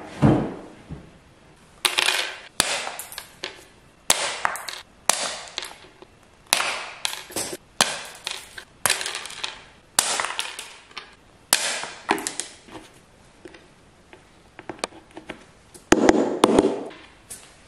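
Green plastic plugs snipped with side cutters and tapped into holes in a melamine cabinet door with a hammer: a run of sharp snaps and knocks, about one a second, with a quicker, louder flurry of hammer taps near the end.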